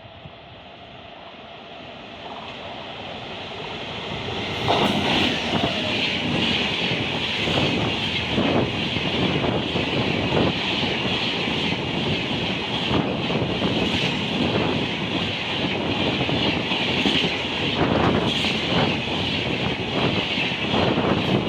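An Indian Railways train approaching and passing at speed. The noise grows louder for about the first four and a half seconds, then holds as a steady rush of wheels on rail, with repeated clacks as the wheels cross rail joints.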